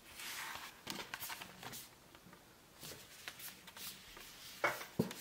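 Cardboard CD sleeves being handled: soft rustling and sliding of card against card, with scattered light taps and clicks, the sharpest two just before the end.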